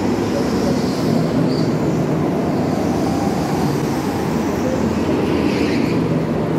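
Go-karts running on an indoor track, heard as a loud, steady drone in a large hall.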